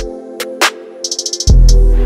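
Instrumental electronic hip-hop beat: a held synth melody over a drum-machine pattern, with a snare hit, a quick hi-hat roll, and a long deep bass note about one and a half seconds in.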